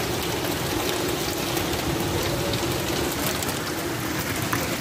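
Heavy rain pelting tin and plastic roof sheets: a dense, steady hiss of rain, dotted with scattered sharp ticks of drops striking the sheets.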